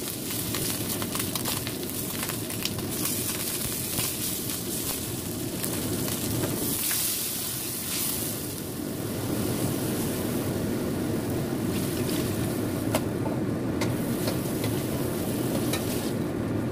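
A whole fish frying with ginger and spice paste in oil in a wok, sizzling as a wooden spatula stirs it. Water then goes in for fish soup, and the broth bubbles at a boil.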